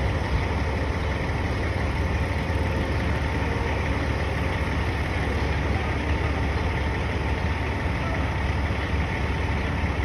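Steady low rumble of a heavy diesel engine running at a constant speed, with a faint steady hum above it.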